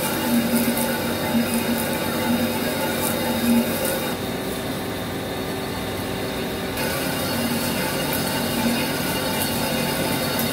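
Vertical CNC lathe turning a cast-iron turbo compressor housing on a finish pass, with coolant spraying onto the cut. The machine runs with a steady hum and a low throb that comes and goes about once a second. The hiss fades for a few seconds midway.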